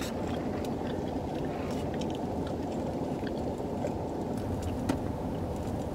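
Steady low hum of a running car, heard inside the cabin, with scattered light clicks.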